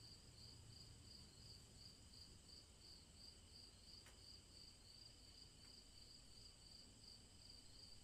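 Faint crickets chirping in a steady, high-pitched trill that pulses about three times a second.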